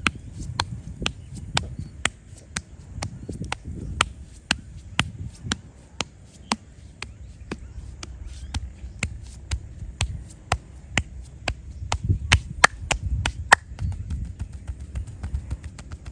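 Sharp slaps and claps of a masseur's hands striking in a percussive head and back massage, coming irregularly about two a second, with the loudest strikes about three-quarters of the way through, over a low rubbing rumble.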